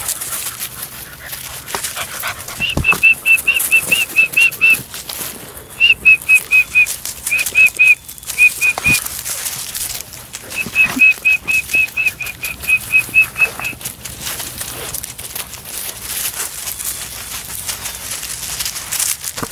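Labrador Retriever puppy giving loud runs of short, high-pitched yips, about five or six a second, in several bursts with short pauses between.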